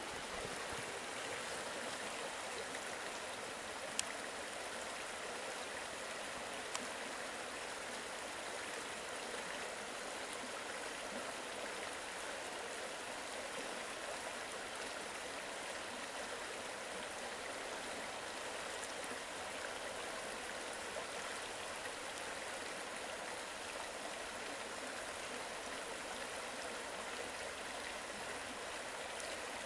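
Shallow rocky creek rushing over small rapids: a steady, even sound of running water. A single sharp click about four seconds in.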